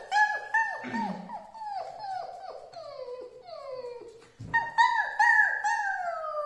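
A man imitating a small dog with a string of high falsetto whimpering yelps, each falling in pitch. There is a short pause about two-thirds of the way through, and a longer falling whine near the end.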